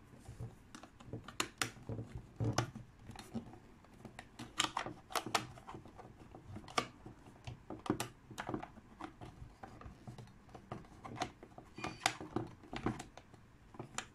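Plastic battery-compartment cover of a portable multiband radio being pushed and slid against the plastic case, making irregular clicks, taps and scrapes. The cover is hard to seat over the D cells, so it takes many tries.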